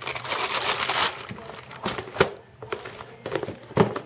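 Wrapping crinkling for about a second as a homemade turtle candy is pulled out of its container, followed by a few light knocks and clicks.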